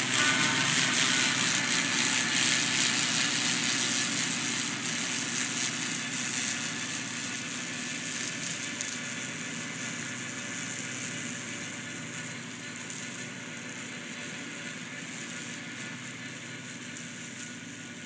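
Kubota 1550 compact tractor's three-cylinder diesel engine running steadily, driving a 1.40 m flail mower through the grass. The sound grows steadily fainter as the tractor pulls away.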